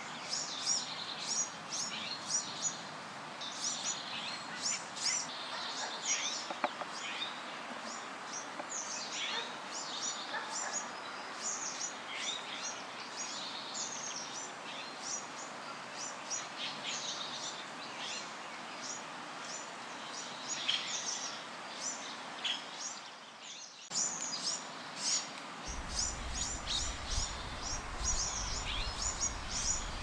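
Small birds chirping and singing over steady background hiss, a dense run of short, high chirps. Near the end the background changes and a low rumble joins in.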